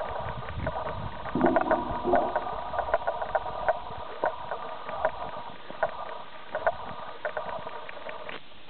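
Irregular ticks and knocks of footsteps and of a handheld camera being handled while walking through tall grass, over a steady hum that cuts off suddenly near the end.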